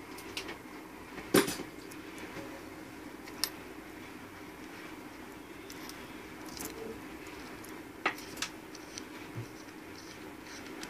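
Scattered sharp metallic clicks and clinks from a stainless-steel Omega Geneve watch case and link bracelet being handled, the loudest about a second and a half in, over a low steady hum.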